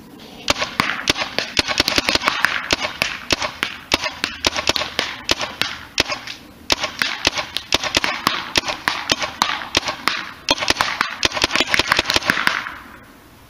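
Tippmann Gryphon paintball marker firing rapid semi-automatic shots, sharp pops about four to five a second, in four strings broken by short pauses.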